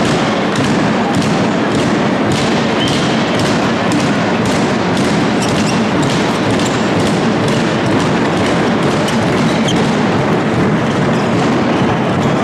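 Crowd in a large sports hall at a handball match: a steady din of many voices with a regular beat of thumps, about two a second.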